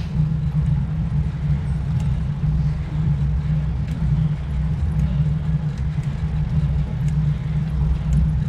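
Steady low rumble of wind on the microphone and road noise from a road bicycle riding along at speed.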